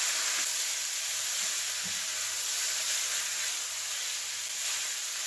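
Sliced mushrooms, peas, carrots and peppers sizzling steadily in hot oil in a frying pan as they are stir-fried.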